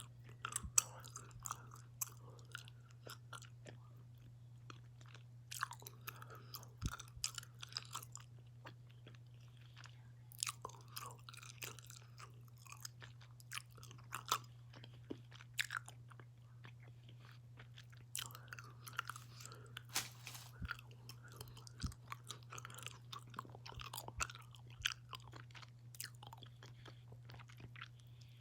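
Close-up chewing of gummy candy: wet smacking and clicking mouth sounds, with heavy breathing at intervals and a steady low hum underneath.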